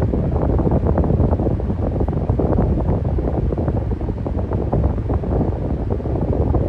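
Electric fan running steadily, its airflow buffeting the microphone into a low, rushing noise with a rapid flutter.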